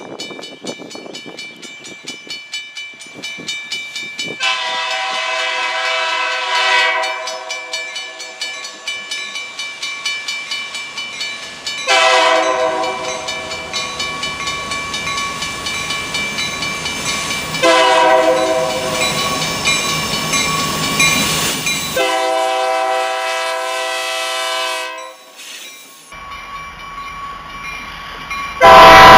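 Lead locomotive of a freight train, an EMD SD40-2F, sounding its multi-note air horn in four long blasts, each running straight into the next, with faint rhythmic wheel clicking on the rails before the horn starts. Near the end the horn comes in very loud as the locomotive draws close.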